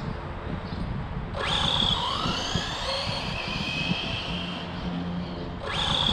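Losi No Prep drag car's brushless electric motor whining at full throttle as the RC car launches about a second in, the high whine sliding in pitch as it accelerates away. The same launch sound starts again near the end.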